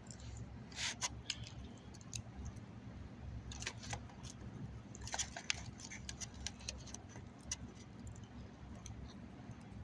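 Small scattered clicks and soft taps of eating, mouth sounds and handling of food, over a steady low hum.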